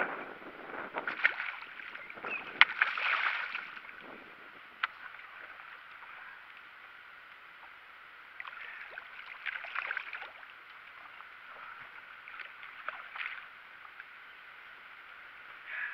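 Water sloshing and splashing around a small fishing boat in several bursts, with a few sharp clicks, while a hooked fish is fought on rod and reel.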